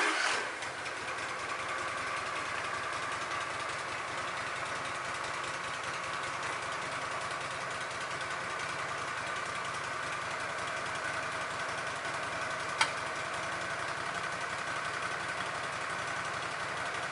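An engine starting and settling into a steady idle, warming up before sawing. A single sharp click about thirteen seconds in.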